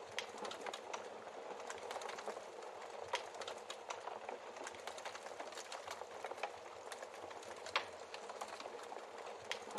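Wood fire crackling steadily in a fireplace, with many small snaps and a sharper log pop about eight seconds in.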